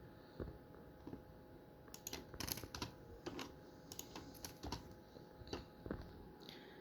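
Faint, irregular light clicks and taps, as of small objects being handled on a tabletop, a little busier about two to three seconds in.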